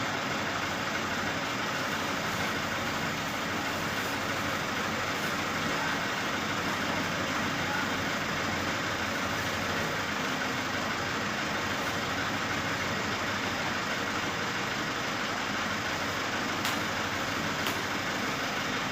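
An engine idling steadily, the kind of truck or heavy-vehicle engine that runs while a machine is being lifted and loaded, with a few faint clicks near the end.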